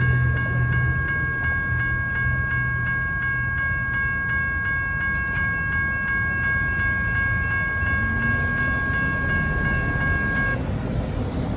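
Railroad crossing warning bell ringing steadily at about three strokes a second while the crossing gates rise; it stops about a second before the end. A low rumble from the departing train fades under it over the first few seconds.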